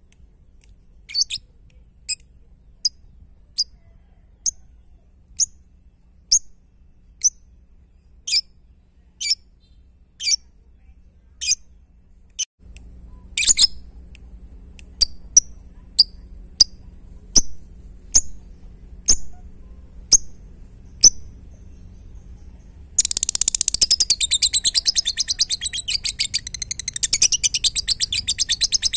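Lovebird calling: single sharp chirps a little under one a second, then, about 23 seconds in, a fast unbroken chattering, the rapid 'ngetik' (typing) song.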